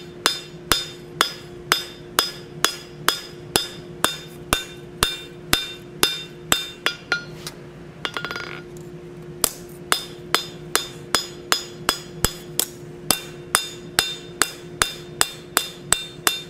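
Blacksmith's forging hammer striking a hot, thin steel oak leaf on the anvil with its flat face, a steady rhythm of about three ringing blows a second, flattening high spots on the back of the leaf. About halfway through the blows stop for a second or so with a short clatter, then resume. A steady low hum runs underneath.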